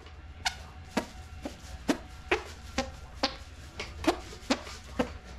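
Music with a steady, punchy beat of about two hits a second.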